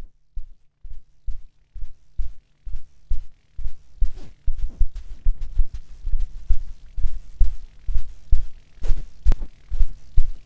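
Heartbeat-like pulse: regular low thumps, about two to three a second, growing steadily louder over a low steady hum.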